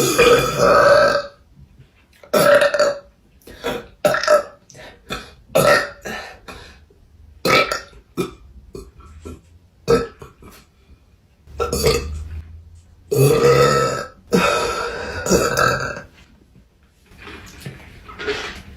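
A woman burping over and over: more than a dozen burps with short pauses between them. Most are short, a few are long and drawn-out, and those near the end are quieter.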